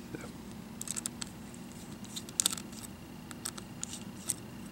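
Small Phillips screwdriver turning out a metal screw from a laptop screen hinge bracket, giving scattered light clicks and ticks in a few short clusters as the bit works in the screw head.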